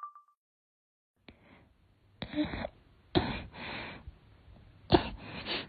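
A person sneezing three times in a row, about a second or more apart, starting about two seconds in, with breathy sniffing between the sneezes: a fit of allergic sneezing.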